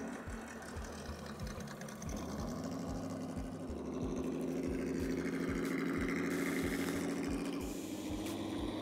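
Axial SCX10 RC crawler's electric motor and gear drivetrain whining as it drives along. The whine steadies about two seconds in and rises a little in pitch near the end.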